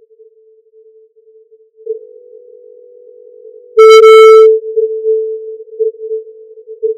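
A single electronic tone near 450 Hz: a DIY EKG's heart signal, picked up through the soundcard and made audible by a frequency shifter. It steps up in level about two seconds in. Near the middle it blares harshly, distorted, for about half a second. It then throbs in pulses a little under a second apart, one per heartbeat.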